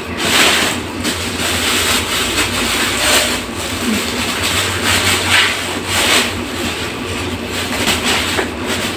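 A large plastic bag rustling and crinkling as hands dig through it, in uneven swells.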